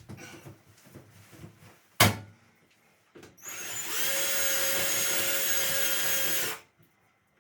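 A sharp knock about two seconds in, then a power drill spins up, runs steadily for about three seconds and stops. The drill is boring a screw hole in the wall out wider to take a plastic wall anchor.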